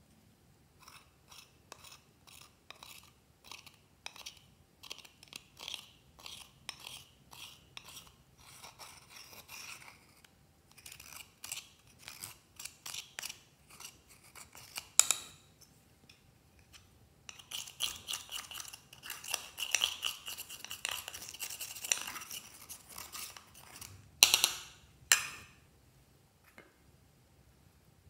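Metal spatula tool scraping and crumbling pressed eyeshadow in its plastic compact: quick repeated scratches, then a denser stretch of steady scraping, with two louder scrapes near the end.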